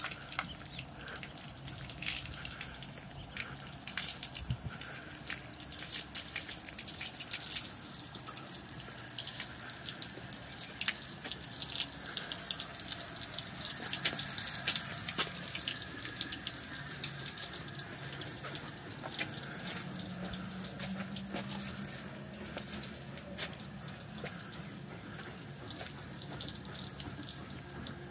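Water running and splashing, with many small drips and crackles.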